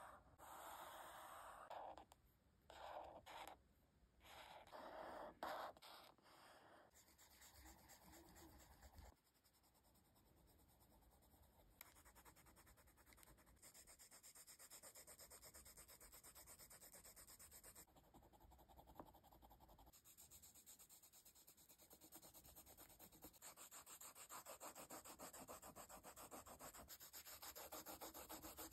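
Faint pen strokes on notebook paper: a few separate drawn lines at first, then rapid back-and-forth scribbling as shapes are shaded in, growing louder near the end.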